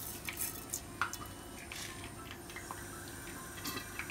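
Black mustard seeds sizzling in hot mustard oil in a pan: a faint steady sizzle with scattered small pops and crackles.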